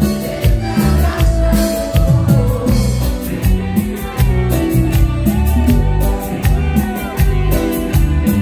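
Live band playing Latin tropical music through a stage sound system, with a heavy steady beat from bass and drums. Electric guitars, congas and button accordion play along.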